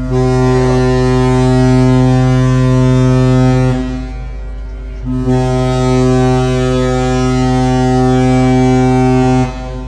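Ship's whistle (horn) of the Pelni passenger liner KM Leuser giving two long, deep blasts of about four seconds each, with a short break between. This is the third-round departure signal: the ship is about to leave and the gangway will soon be raised.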